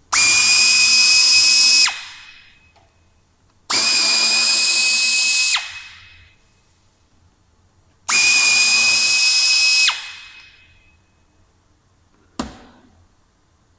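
Electric drill-driver running in three bursts of about two seconds each, each with a steady whine that winds down as it stops. A short knock follows near the end.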